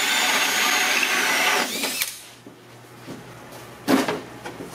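A power drill with a hole saw cutting through 3/4-inch plywood, running steadily with a high whine for about two seconds and then stopping as the cut finishes from the second side. About four seconds in, one sharp wooden knock as the plywood panel is handled.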